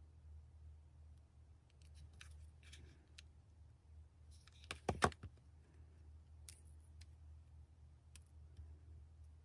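Quiet handling of grosgrain ribbon and a hot glue gun: faint rustles and light taps, with one sharp click about five seconds in, the loudest sound, over a steady low hum.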